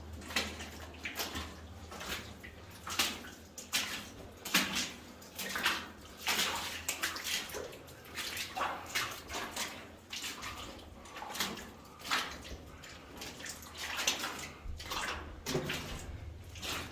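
Footsteps wading through shallow water, an uneven series of splashes and sloshes about once or twice a second.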